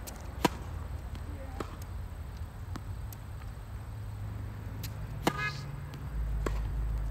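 Tennis racket striking the ball on a serve, a sharp pop about half a second in, followed by fainter ball hits and bounces. A little after five seconds there is a louder click with a brief high squeak.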